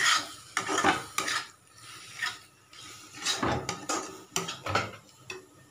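Spatula scraping and knocking against a kadhai while stirring frying masala: a quick run of strokes, then scattered ones that stop shortly before the end.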